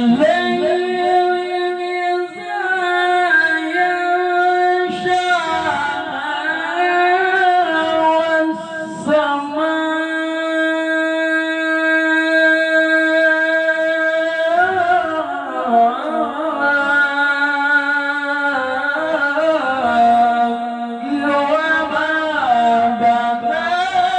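Male Quran reciter (qari) singing a long, ornamented melodic passage in tilawah style. The voice is drawn out on sustained notes with rising and falling pitch turns, and a long steady held note in the middle.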